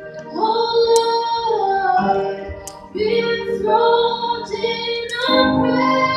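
A woman singing a worship song over instrumental backing, in long held phrases that begin about half a second, three seconds and five seconds in.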